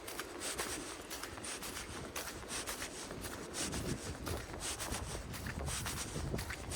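Footsteps crunching on packed snow, about two steps a second, with a low rumble through the middle.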